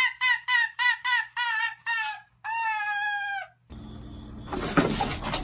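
A bird calling: a quick run of short pitched notes, about three a second, ending in one long drawn-out note. The sound then cuts abruptly to noisy room sound.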